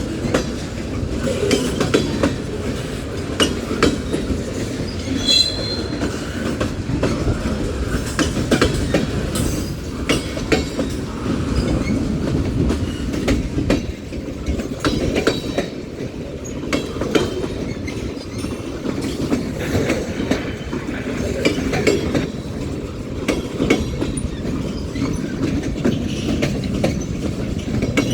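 Union Pacific mixed freight train's cars rolling past close by: a steady rumble of wheels on rail with a continual run of sharp clicks over the rail joints. A brief high squeal from the wheels comes about five seconds in.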